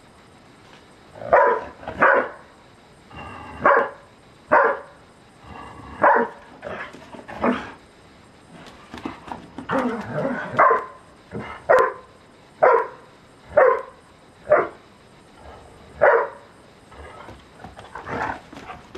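Briard dogs barking in play: a string of over a dozen short, sharp barks at irregular intervals, some coming in quick pairs.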